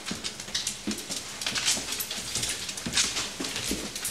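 Light, irregular clicks and scuffs on a bare wooden floor, several a second.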